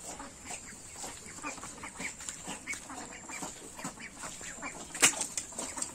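Domestic poultry calling: many short calls in quick succession over a steady high-pitched whine, with one sharp click about five seconds in.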